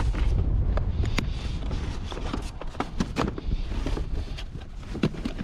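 Junk in a curbside rubbish pile being rummaged through and handled: irregular clicks and knocks of objects bumping and clattering, over a steady low rumble.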